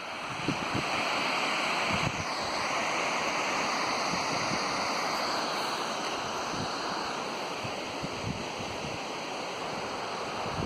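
Steady rushing roar of a large waterfall, with light wind buffeting on the microphone.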